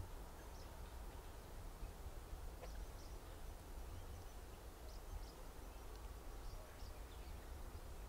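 Quiet outdoor ambience: a steady low rumble with faint, short, high chirps of birds scattered through it.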